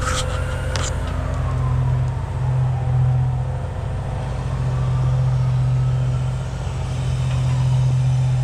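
Dryer-vent cleaning equipment running steadily with a low motor hum, with a few sharp clicks in the first second.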